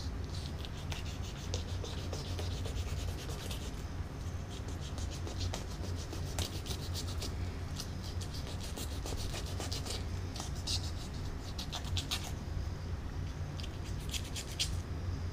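Fillet knife scraping through a red drum's flesh, along its bones and scaly skin, as a fillet is cut away: runs of small rapid scratchy clicks with short pauses.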